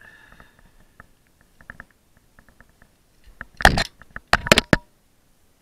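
Climbing gear handled close to the microphone: small clicks and rattles of metal hardware, then two loud scraping rustles past the halfway point, as gloved hands work the rope and locked-off rappel device.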